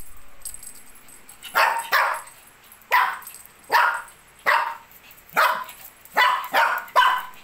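Shih Tzu barking repeatedly in play, about nine short, sharp barks starting about a second and a half in, some in quick pairs.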